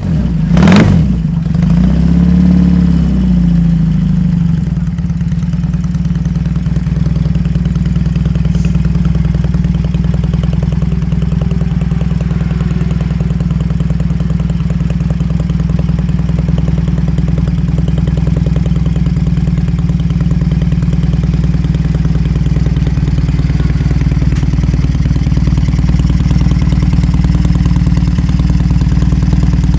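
BMW 1000 flat-twin boxer engine of a 1970s racing sidecar, revved up and down in the first few seconds, then idling steadily.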